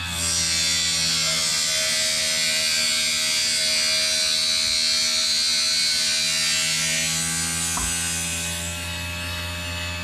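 RC foam-tire truing machine running with its lid closed: the motor spins the foam tire while the cutter shaves it, a steady hiss over the motor hum. The cutting hiss eases off near the end as the cutter clears the tire.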